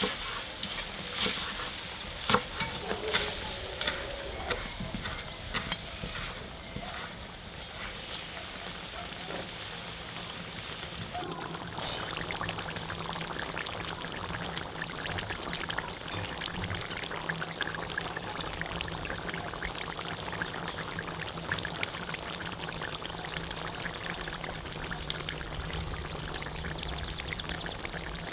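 A chef's knife chopping green onions on a wooden cutting board, a few sharp strikes in the first seconds. From about twelve seconds in, a cast iron pot of braising meat and mushrooms simmers and sizzles with a steady, dense crackling fizz.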